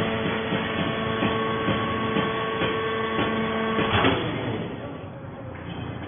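Hydraulic pump of a vertical plant-fibre baler running with a steady whine of several tones and light knocks while the press compresses a bale, cutting off with a sharp knock about four seconds in.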